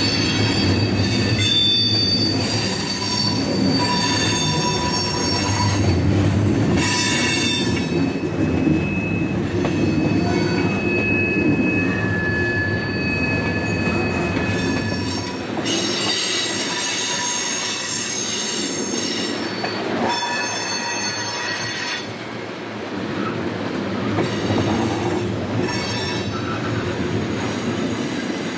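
Freight train cars rolling past, steel wheels squealing in thin high tones that come and go over a steady rumble, with occasional clanks. About halfway through the low rumble drops away, leaving mostly the squeal and rolling noise.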